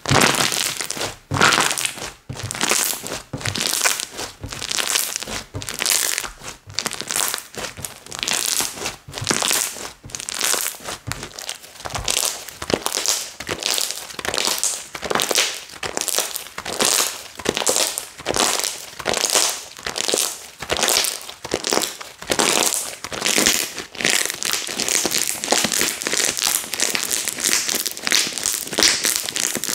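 Hands squishing and pressing a long-neglected Cozy Slime, giving a run of crinkly, crackling pops over and over, a couple of times a second.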